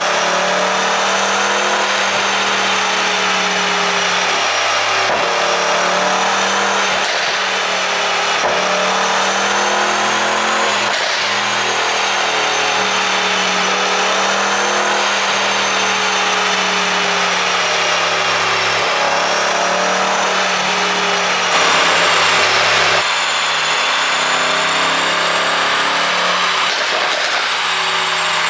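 Mercedes-AMG E63 4Matic+ twin-turbo 4.0 V8, fitted with a pop-and-crackle ECU tune, running steadily at a held engine speed with slow small rises and falls in pitch. It gets louder for about a second and a half around two-thirds of the way through.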